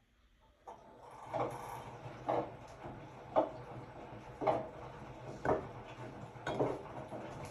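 Hotpoint-Ariston RSG 825 J washing machine's drum starting to turn again after a pause in the wash cycle: the motor hum comes in under a second in, and the laundry drops with a soft swishing thud about once a second as the drum tumbles.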